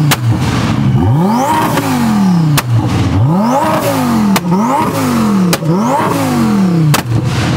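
A Lamborghini Huracán's engine revved hard about four times in quick succession, each rev rising and falling away. As the throttle closes, the exhaust lets out sharp, gunshot-like cracks: the backfire that shoots flames.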